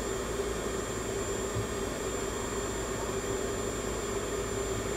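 Ozone generator running with a steady whirring hum, a constant mid-pitched tone over a low drone.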